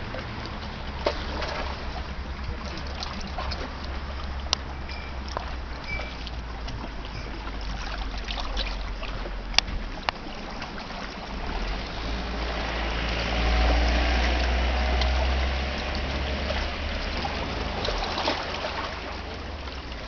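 Lake water lapping and washing against a rocky shore under a steady low rumble, with a few sharp small clicks. The wash swells louder for a few seconds past the middle, then settles back.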